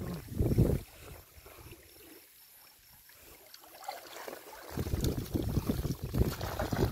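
Water splashing and sloshing as a fishing net is hauled up out of a shallow river, with water pouring off it and splashes of wading legs. A brief splash at the start, a quieter spell, then a longer, louder stretch of splashing from a little under five seconds in.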